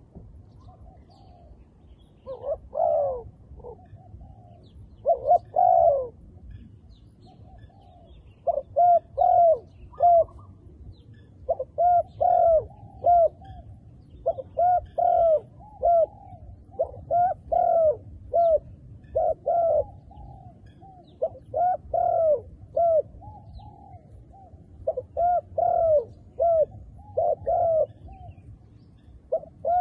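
Spotted doves cooing, with repeated short phrases of two to four coos following one another every second or two.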